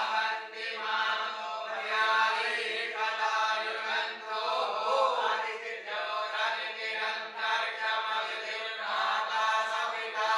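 Voices chanting Vedic mantras together in steady, phrased recitation.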